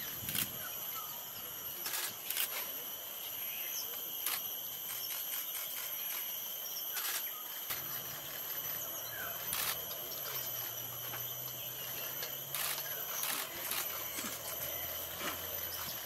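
Camera shutter clicks from several photographers, about ten sharp clicks at irregular intervals, over a steady high insect drone. The flycatcher's soft chattering call is drowned out by the clicks.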